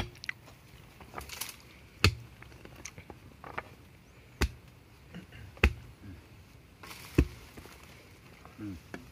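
A wooden digging stick jabbed into wet soil among roots: five sharp knocks about one and a half seconds apart, with lighter scrapes and clicks between.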